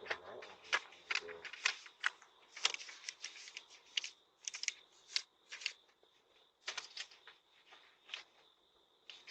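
Faint, irregular rustling and clicking handling noises heard through a doorbell camera's microphone, over a faint steady high whine.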